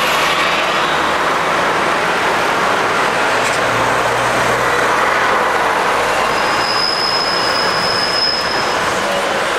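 Heavy street traffic with double-decker buses passing close, their diesel engines giving a low hum in the middle. A thin, steady high squeal sounds for about two seconds from around six seconds in.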